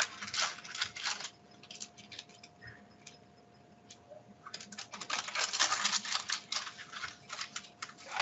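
Fast clicking and tapping on a laptop keyboard and trackpad in two flurries, one at the start and a longer one from about halfway to near the end, over a faint steady hum.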